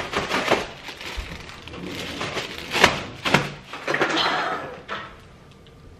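Nuts in a plastic zip-top bag being banged to crack them: several sharp knocks at uneven intervals, with the bag rustling between them.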